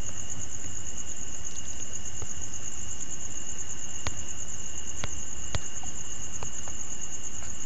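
Steady background hiss with two constant high-pitched tones, like a continuous insect trill, and a few faint clicks.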